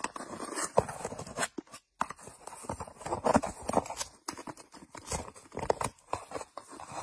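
A cat nibbling and pushing at the edge of a hole, making irregular soft clicks and crackles with a brief pause about two seconds in.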